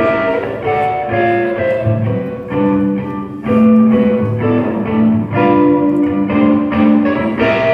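Electric guitar played solo through an amplifier, a run of chords and single-note lines.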